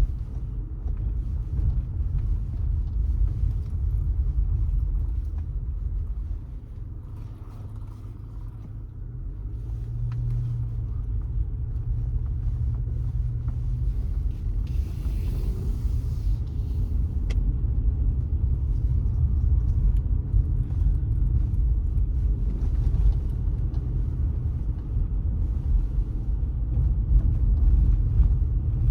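Car driving, with a steady low rumble of road and engine noise. It drops quieter for a few seconds about a third of the way in, with a steady hum, then builds again.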